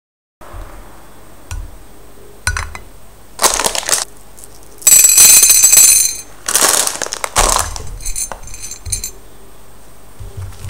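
Unpopped popcorn kernels poured and dropped onto a glass plate, clattering and clinking in several bursts, the longest and loudest lasting about a second around the middle, with a few lighter clicks later as they are set in place.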